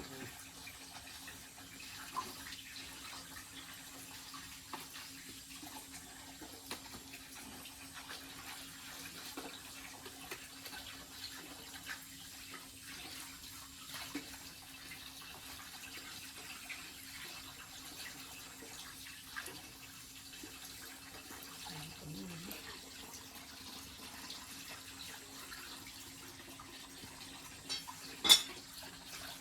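Water running steadily, with small scattered clicks and one sharp knock near the end.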